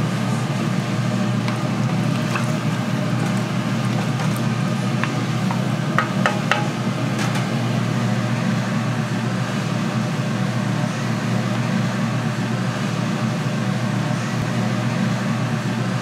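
Steady low mechanical hum with a few light clicks and taps about five to seven seconds in.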